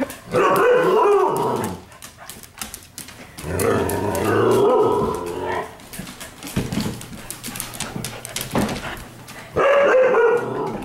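Dogs in rough play, growling and barking in three drawn-out bouts: at the start, about four seconds in, and near the end. Scattered short clicks and knocks come between the bouts.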